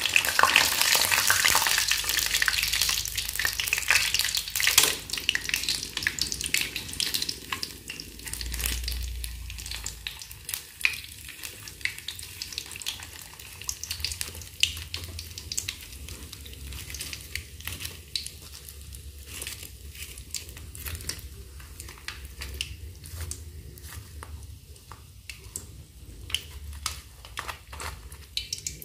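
Hot oil sizzling and crackling in a wok as deep-fried wonton-skin parcels filled with instant noodles are lifted out onto a slotted metal strainer to drain. The sizzle is loudest for the first few seconds, then thins to scattered crackles.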